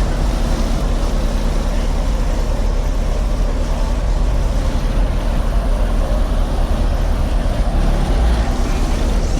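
Four 15-inch Pride subwoofers in a 6th-order box playing bass at very high volume, heard from inside the car: a loud, steady, heavy low rumble with a dense noisy wash above it.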